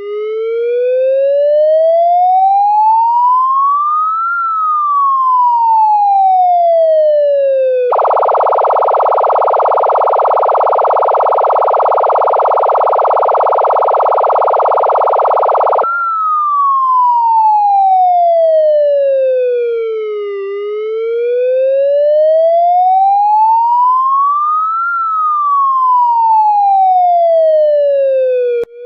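Emergency-vehicle siren in a slow wail: one tone rising for about four seconds and falling for about four. Partway through, the wail gives way for about eight seconds to a harsher buzzing tone, then the wail resumes and cuts off abruptly near the end.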